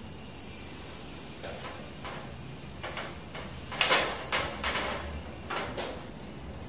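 Hand screwdriver turning a screw into an aluminium sliding-door track: a run of irregular metallic scrapes and clicks, loudest about four seconds in.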